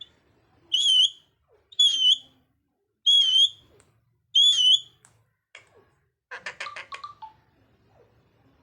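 A parrot whistling four times, each a short wavering whistle, evenly spaced, then a short rattling call that falls in pitch near the end.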